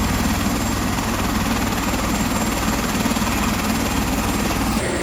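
Helicopter running close by: a steady rotor beat under engine noise.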